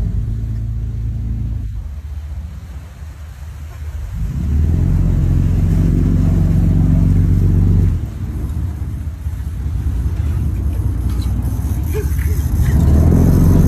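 Sport-fishing boat's engines running under power: steady at first, pushed harder about four seconds in, easing off a few seconds later, then opened up again near the end.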